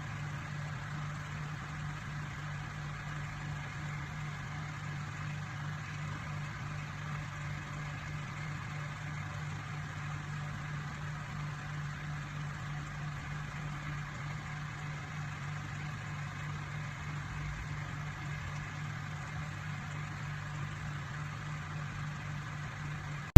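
Microwave oven running: a steady low hum with a faint whir above it.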